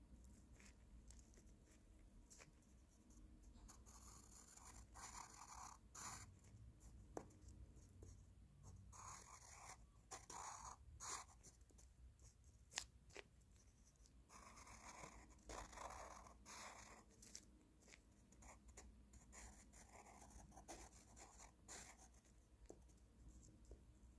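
Faint scratching of a pencil on paper as lines are drawn, in four bursts of strokes each a couple of seconds long, with quieter pauses and a few sharp ticks between them.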